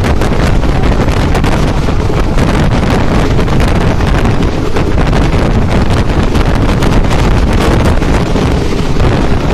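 Loud, steady wind buffeting the microphone at an open train window, over the rumble of the train running at speed along the track.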